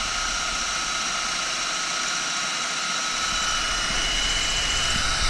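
Cordless drill running steadily under load with a steady whine, its bit boring through the cast-iron wall of a Case diesel engine block.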